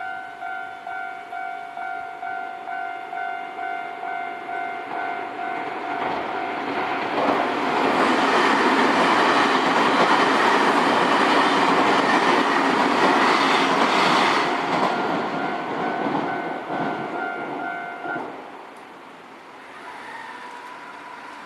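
A Japanese railway level-crossing warning bell rings in an even two-tone electronic ding, about one and a half to two strikes a second. A Nankai train runs over the crossing about a third of the way in, and its loud wheel and rail noise covers the bell for several seconds. The bell comes back as the train clears, then stops shortly before the end, leaving faint road traffic.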